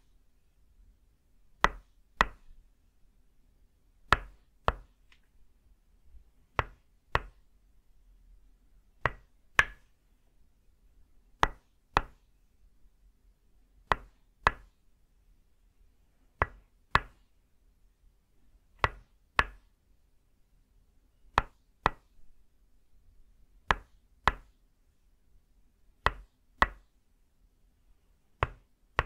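Tok sen massage: a wooden mallet striking a wooden peg held against the upper back, giving sharp wooden knocks in pairs. Two quick hits about half a second apart, the pair repeating evenly every two and a half seconds or so.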